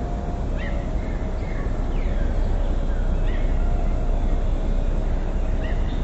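Steady rushing of a mountain river's flowing water, with birds calling over it: a few short chirps and one falling whistle about two seconds in.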